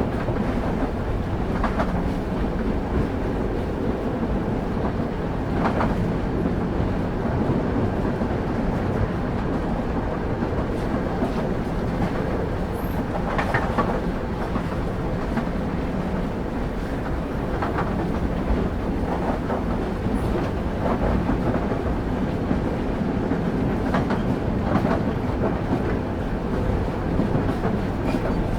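Railway carriage rolling along the track, heard from on board: a steady low rumble from the wheels, with a sharp clack every few seconds as they cross rail joints.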